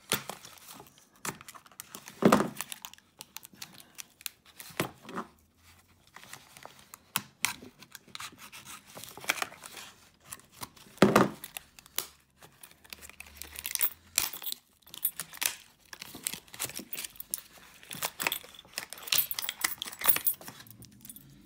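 Stiff plastic blister packaging being cut with a knife and prised open: irregular crackling and crinkling of the plastic, with sharp snaps as it gives, the loudest about two seconds in and about eleven seconds in. Near the end the padlock is pulled free of the pack.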